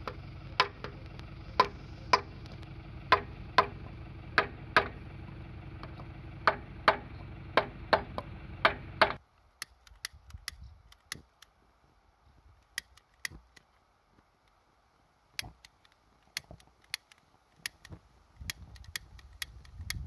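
Repeated sharp knocks, often in pairs, as a wooden post is driven down onto the seized pistons of a 1938 Volvo LV94 engine block to try to free them. About nine seconds in this gives way to quieter, scattered clicks from a utility lighter lighting fuel in the cylinders.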